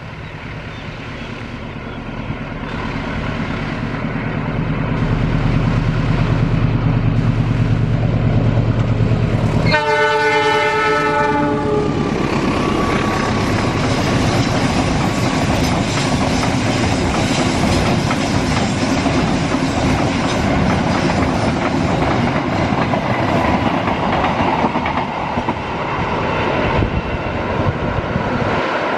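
A diesel locomotive approaching, its engine hum growing louder. About ten seconds in it sounds a horn chord of several tones for about two seconds, then the train passes close by with its wheels clattering over the rail joints.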